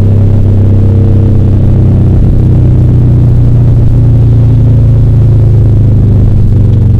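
1998 Subaru Legacy's 2.2-litre flat-four, fitted with custom unequal-length headers and a straight-pipe resonator in place of the muffler, cruising at about 70 km/h. Its exhaust makes a steady, deep drone, heard from inside the cabin.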